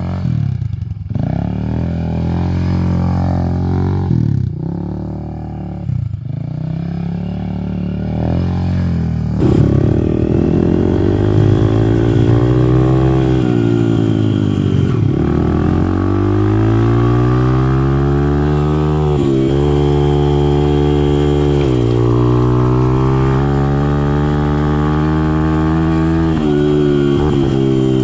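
Quad engine revving with the throttle as it spins in loose sand, giving way about a third of the way in to a small dirt bike's engine heard from the saddle, its pitch climbing and dropping repeatedly as the throttle opens and closes.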